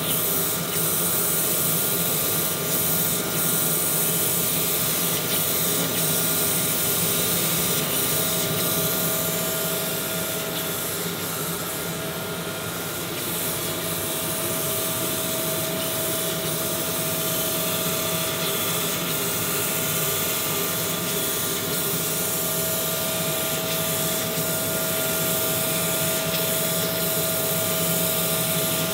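Crankshaft grinding machine's wheel grinding a main bearing journal of an Audi RS4 V6 crankshaft under a stream of coolant: a steady grinding hiss with a constant whine over it. The journal is being ground round to take out its runout.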